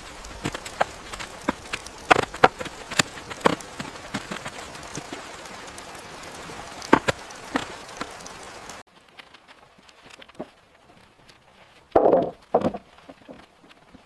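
Chopping on wood: scattered sharp knocks over a steady hiss, then, after a cut, a few heavier, duller chopping blows near the end.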